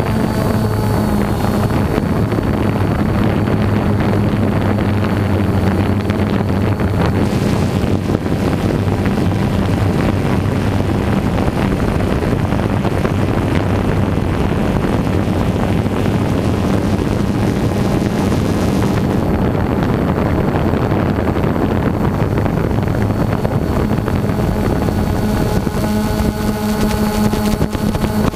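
Multirotor drone's motors and propellers running steadily, a constant hum under a rushing wind noise on the onboard microphone.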